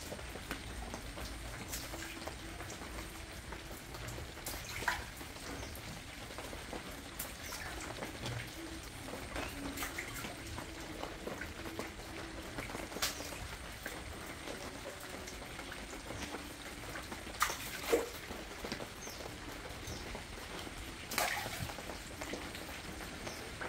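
Water in a large fish tank during feeding: a steady trickling hiss broken by scattered sharp splashes at the surface, the loudest pair about 18 seconds in.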